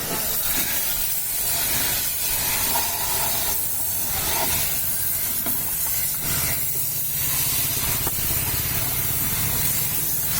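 Steady loud hiss of a high-pressure water jet spraying a vehicle during a wash, with a low rumble underneath.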